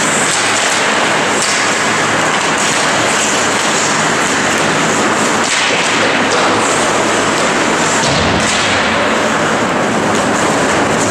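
Ice hockey play at rink level: a steady noisy wash of skates scraping across the ice, with scattered light clicks and knocks from sticks and puck.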